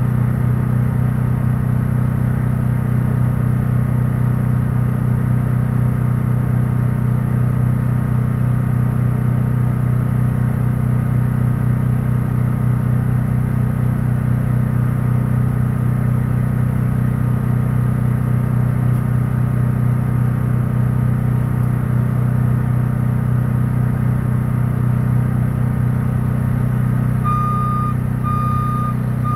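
Heavy work vehicle's engine running steadily at a constant pitch. About two seconds before the end, a reversing alarm starts beeping, roughly once a second.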